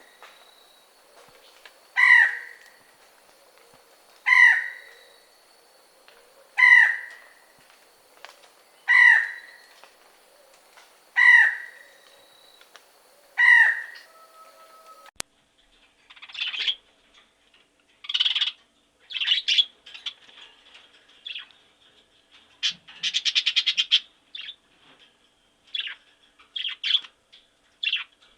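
A bird's harsh call, falling slightly in pitch, repeated six times about every two seconds; after an abrupt cut about halfway through, a small songbird's quick chirps and a fast trill.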